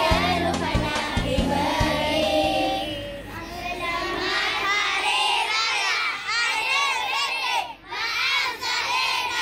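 A large group of young children singing a Hari Raya song together over a backing track; the backing music stops about three seconds in and the children's voices carry on alone, singing and calling out in chorus.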